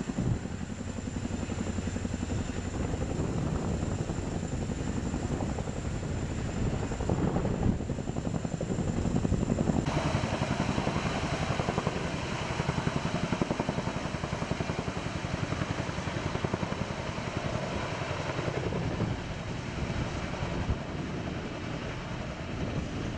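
Boeing CH-47 Chinook tandem-rotor helicopter running with a rapid, steady rotor chop, hovering and then climbing away while lifting a jet on a sling load.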